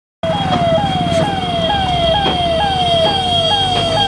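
Ambulance siren sounding in a fast repeating pattern: each note jumps up and slides down, about two a second, over a steady high tone and a low vehicle rumble. It starts abruptly just after the beginning.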